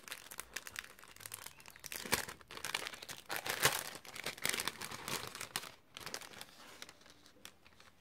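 Clear plastic sleeve crinkling and crackling as fingers open and handle it. The crackles come irregularly, busiest in the middle and thinning out near the end.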